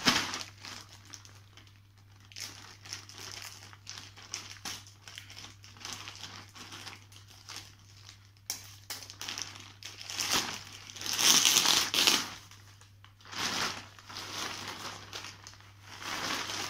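Thin clear plastic grocery bags crinkling as they are handled and pulled open, in irregular rustles with short pauses, the loudest a few seconds long about ten seconds in.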